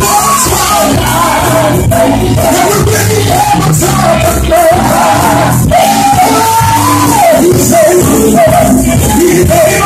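Live gospel song: several voices singing into microphones over keyboard and drums, amplified through a PA system.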